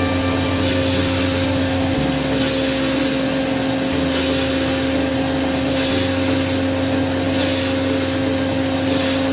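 CNC milling machine running, its spindle giving a steady whine over continuous cutting noise, with a low hum that shifts every couple of seconds.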